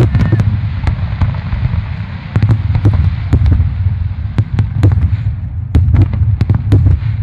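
Aerial fireworks shells bursting in rapid succession: a dense string of sharp cracks and bangs over continuous low booming, easing briefly about five seconds in before another cluster of cracks.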